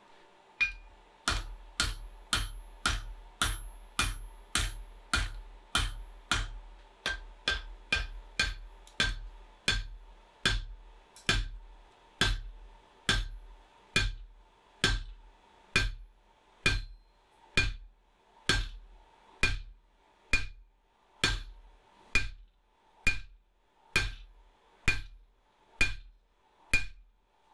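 Hand-hammer blows on the end of a red-hot steel bar stood upright in the anvil's pritchel hole, upsetting a shoulder on it. Each blow is a sharp strike with a brief metallic ring, evenly paced at about two a second at first and slowing to about one a second later on.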